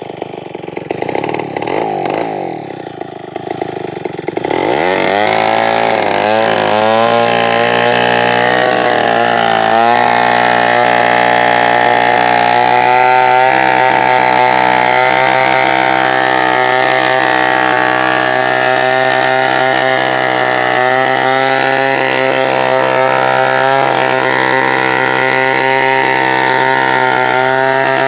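Two-stroke chainsaw ripping a log lengthwise along the grain. It runs at lower revs for the first four seconds or so, then climbs to full throttle and holds a steady, loud pitch under load as it cuts.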